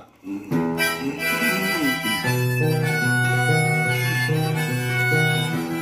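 Harmonica and nylon-string classical guitar played together by one person: the harmonica holds long melody notes over strummed guitar chords, starting about half a second in.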